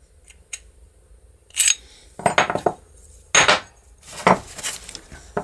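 Small metal window-handle parts being handled and set down on a wooden workbench: two faint clicks, then from about a second and a half in, five or so bouts of clinking, clattering metal-on-wood knocks.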